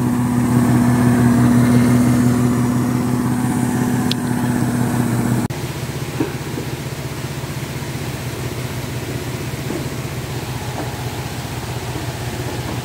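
Small engine on a pickup truck's bed running steadily with an even hum. About five and a half seconds in the sound changes abruptly to a lower, steady mechanical hum.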